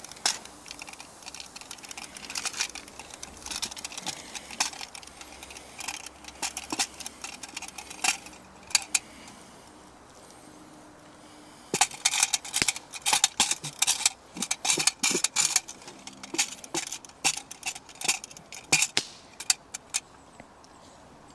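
Wooden spatula scraping and knocking food out of metal pans onto a wooden plate: bursts of quick clacks and scrapes, with a pause of a couple of seconds around the middle.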